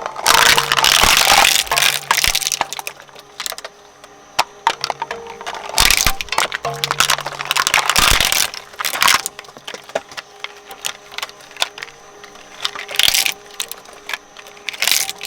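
Shredder blades crushing and cracking material, in loud spells of crunching at the start, about 6 seconds in and around 8 seconds in, with scattered sharp cracks in between over a steady motor hum.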